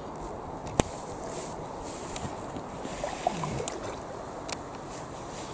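Kayak drifting on a still canal: a faint steady rush of wind and water, with one sharp knock about a second in and a few lighter taps later.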